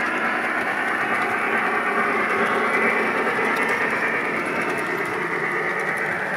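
O gauge model freight train of hopper cars rolling along the track: a steady rumble and whir of wheels and motor, easing off slightly near the end.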